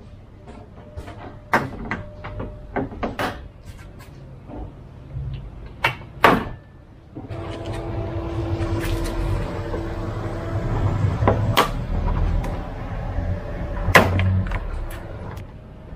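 Plastic front bumper of a Mitsubishi Montero Sport being pulled and worked at the wheel-arch edge: a string of sharp plastic clicks and knocks as its clips are pried loose. A steady rumble with a faint hum joins about seven seconds in.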